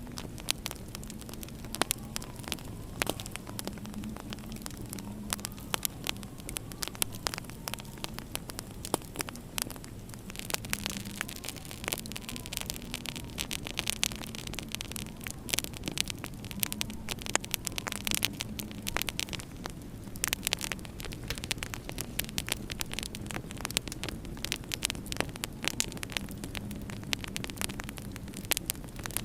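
Wood fire in a fireplace crackling, with frequent irregular sharp pops and snaps over a low steady hum.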